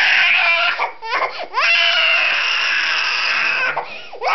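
A toddler crying hard in a tantrum: a short wail, then one long drawn-out wail of about two and a half seconds, a catch of breath, and another wail starting near the end.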